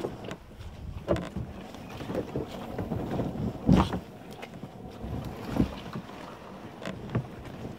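A kayak being dragged by its carry handle over the ground and brush: a continuous scraping and rustling of the hull, with a few knocks, the loudest about halfway through.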